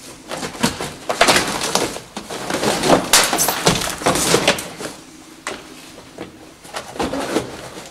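Old carpeted floor mat and its padding being torn up and dragged off a 1965 Corvair's floor pan: rough rustling and tearing in bursts, easing off after about five seconds.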